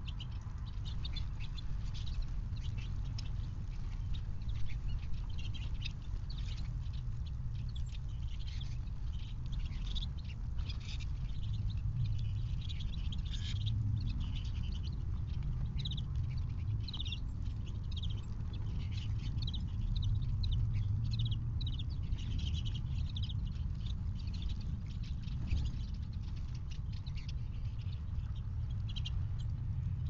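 Many small songbirds chirping and twittering in short, high calls over a steady low rumble.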